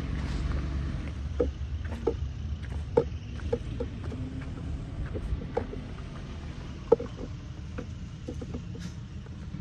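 Radio-controlled model bulldozer working: a steady low rumble with irregular small clicks and knocks, the sharpest about three seconds in and just before seven seconds.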